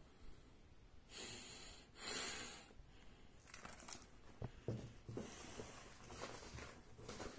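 Quiet handling noises: two short rushes of noise about one and two seconds in, then scattered clicks and rustles as things are moved about.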